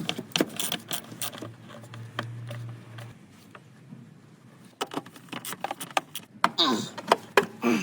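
Light metallic clinks and rattles of hand tools and metal parts being handled during work on a car's battery and electrics, an irregular string of sharp clicks.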